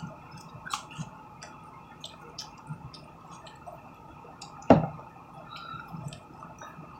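Quiet eating sounds: scattered small clicks and smacks of chewing at irregular intervals, with one sharper click about two-thirds of the way through.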